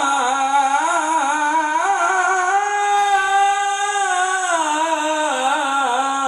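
A man's melodic Qur'an recitation (tilawah), amplified through a handheld microphone: one long phrase with fast ornamented wavering, climbing to a held higher note about halfway through, then sinking back to a lower pitch.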